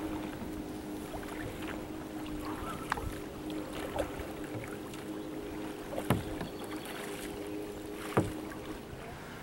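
Kayak being paddled with a double-bladed paddle: the blades dip and splash in the water, with several sharp clicks or knocks, the loudest two near the end. A faint steady hum runs underneath and stops near the end.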